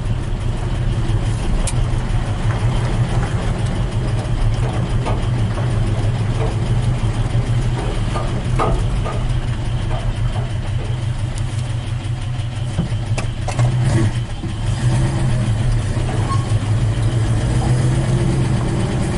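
1956 Ford F100 pickup's engine running steadily as the truck drives at low speed, heard from inside the cab, with a few light clicks and rattles about halfway through.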